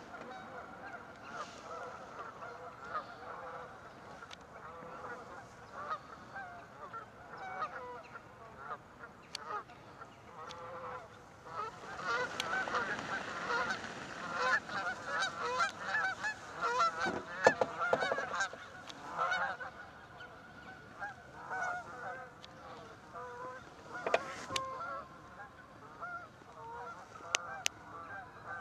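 A flock of Canada geese honking continuously, many birds calling over one another. The calling swells into a louder, denser clamour near the middle, with a rush of splashing and wingbeats as the flock takes off from the water, and a single sharp knock partway through.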